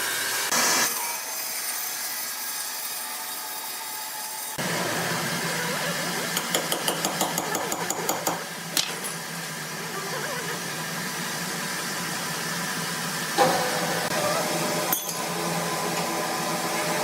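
Sawmill machinery running, with a rapid run of clicks at about five a second in the middle and a couple of sharp knocks later on.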